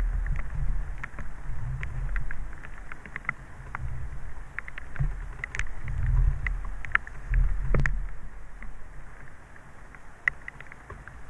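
Wind rumbling on the microphone in uneven gusts, with scattered light ticks and taps and one sharper knock just before the eight-second mark.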